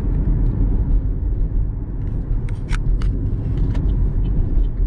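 Steady low rumble of a car heard from inside the cabin, with a few short sharp clicks around the middle.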